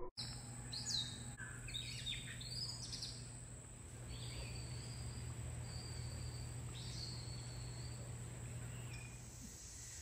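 Birds chirping and whistling in short high calls over outdoor ambience, with a steady low hum underneath.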